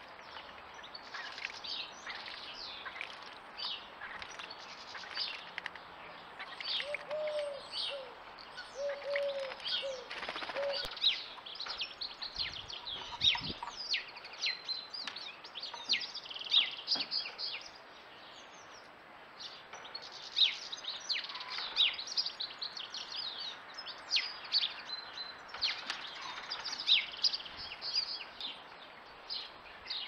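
Small garden birds singing and chirping: many quick, high notes and trills overlapping, with a few lower, rounded notes about a quarter of the way in.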